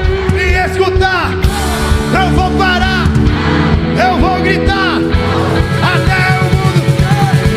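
Live worship band playing a rock-style song: drums, bass and held chords under a melodic lead line that bends up and down.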